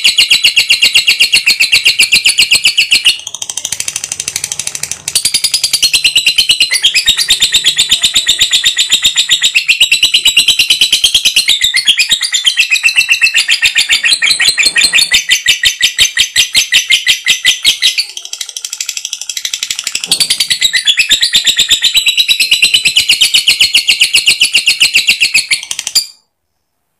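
Lovebird's long, rapid, shrill chatter: a fast, unbroken run of high notes, with short breaks about three seconds in and again about eighteen seconds in, cutting off abruptly near the end.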